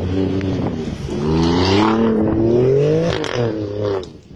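Alfa Romeo Stelvio SUV engine revving hard as the car accelerates and slides on snow. The pitch climbs steadily for about two seconds, then drops, and the sound fades near the end as the car pulls away.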